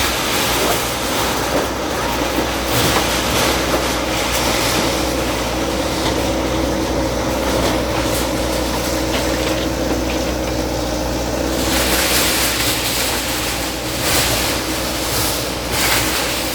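Bulldozer's diesel engine running steadily, with a constant low hum and a wash of noise over it, broken by a few short knocks.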